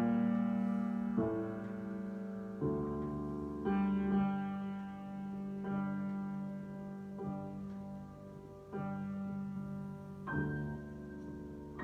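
Slow solo piano improvisation: sustained chords struck about once every one to two seconds, each left to ring into the next.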